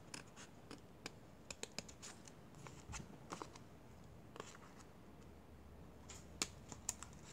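Paper being handled on a craft table: faint light clicks and rustles at irregular moments, a few of them a little sharper.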